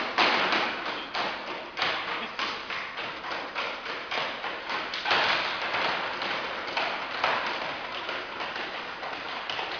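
A run of knocks and thuds, about two to three a second, somewhat irregular.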